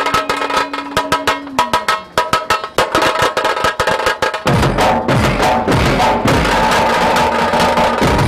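Outro background music: a fast run of percussive clicks with a held note that slides down, then a fuller drum beat with bass comes in about halfway through.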